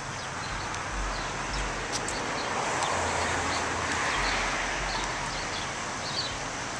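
Town street ambience: a steady hiss of traffic that swells for a couple of seconds around the middle as a vehicle goes by, with faint short bird chirps scattered through.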